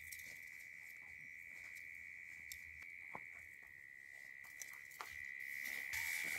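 Night insects keep up a steady high-pitched trill that grows louder near the end. Scattered clicks and rustles come from a nylon tent and its poles being handled on the ground, the rustling heaviest at the very end.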